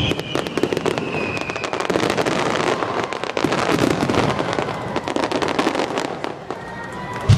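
Fireworks crackling overhead: a dense, rapid run of sharp pops and snaps that eases slightly near the end.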